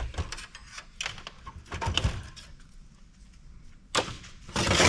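Cutters snipping through the cables that still tie a computer power supply in place: a scatter of sharp clicks and knocks, the loudest about four seconds in and near the end.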